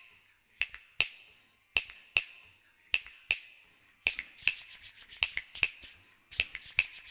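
Finger snaps in a steady rhythm, in pairs about once a second, turning into a quicker, denser run of snaps and clicks about four seconds in.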